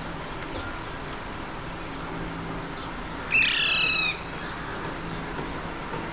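Alexandrine parakeet giving one loud, harsh squawk about three seconds in, lasting under a second. Fainter calls sit over a steady low background hum.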